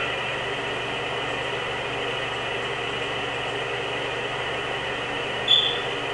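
Steady hiss of background noise, like a fan or sound machine in the room, with one brief high-pitched squeak about five and a half seconds in.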